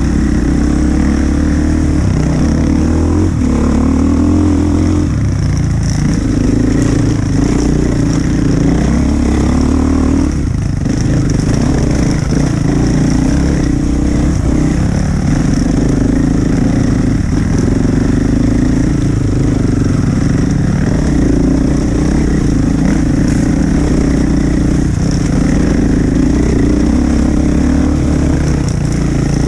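Enduro dirt bike engine running at low to moderate revs on a trail, with the throttle opening and closing so the engine note rises and falls, heard close up from the camera rider's own bike. Briefly eased off about ten seconds in.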